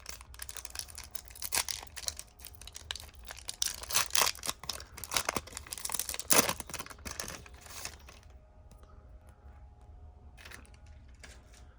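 A trading-card pack wrapper being torn open and crinkled, a busy rustling and crackling that eases off about two-thirds of the way through into a few faint clicks as the cards are handled.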